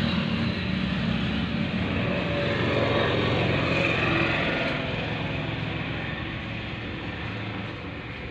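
A motor vehicle's engine passing on the road, growing louder to about four seconds in and then fading away.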